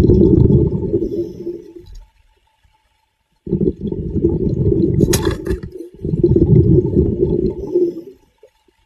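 Rushing, churning water in three loud surges, each starting and stopping abruptly, with a short sharp splash in the middle one.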